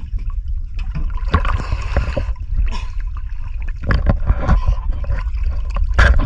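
Water splashing and gurgling with scattered sharp knocks over a steady low rumble.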